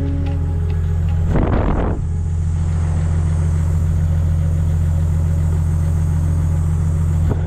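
Toyota 80 Series Land Cruiser engine idling with a steady low hum, with a short rushing noise about a second and a half in and a light click near the end.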